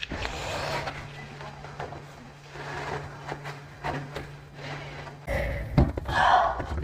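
Handling sounds of floor cleaning: a rag rustling and rubbing on a tile floor, with light knocks and feet shuffling. A brief louder sound comes near the end.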